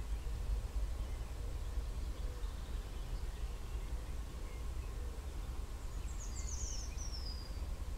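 Outdoor field ambience: a steady low rumble, with a bird's short, high, rapid song about six seconds in, falling in pitch.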